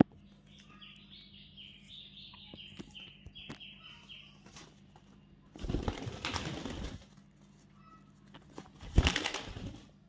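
A parrot gives a run of short, repeated calls at one pitch, about three a second, for a few seconds. Then a white Indian ringneck parrot's wings flap loudly as it takes flight, for over a second about halfway through, followed by a shorter, louder flurry of wingbeats near the end.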